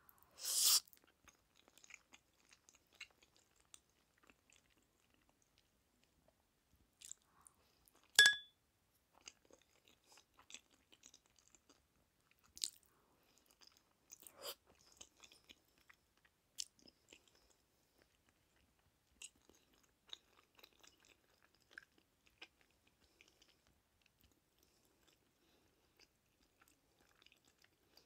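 Jjajangmyeon black bean noodles slurped in the first second, then quiet, close-miked chewing with small wet clicks of the mouth. One sharp click with a brief ring sounds about eight seconds in.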